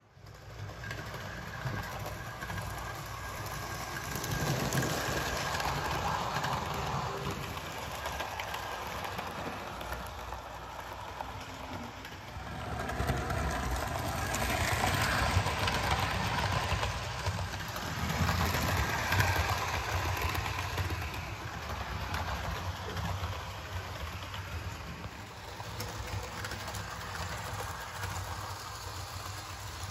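A Bachmann HO-scale Gordon model locomotive running along its track, its small electric motor and wheels making a continuous hum. The sound swells louder at times as the engine passes close by, most strongly around the middle.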